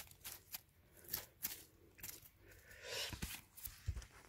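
Fingers scraping and scratching in dry soil and needle litter, a run of faint, irregular scratches and crackles, as earth is cleared by hand from around a hasuo root.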